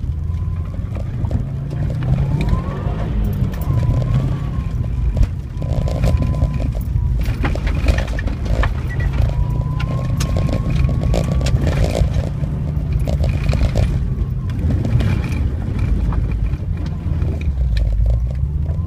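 2012 Subaru WRX's turbocharged flat-four engine, heard from inside the car, revving up and down between roughly 2,500 and 4,000 rpm as it accelerates out of corners and lifts for the next. Frequent knocks and clatter from the rough dirt surface run through it.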